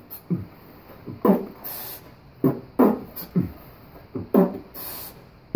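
Vocal percussion from a male a cappella singer: short mouth-made drum hits that drop in pitch, about one a second, with two brief hissing cymbal-like sounds between them.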